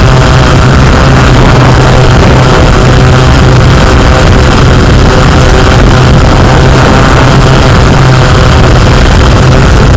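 Yuneec Q500+ quadcopter's electric motors and propellers running steadily in flight, a loud, even buzz picked up close by the drone's own camera microphone.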